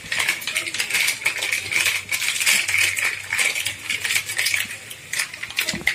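Perforated steel spatula scraping and clinking against a metal kadhai in a quick, dense run of scrapes and taps as cooked semolina dough is stirred and mixed.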